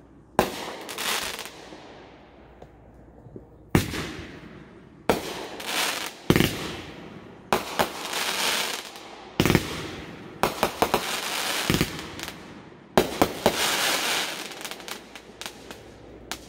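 Aerial fireworks bursting overhead: about nine sharp bangs, a second or two apart, many trailed by a second or more of dense crackling.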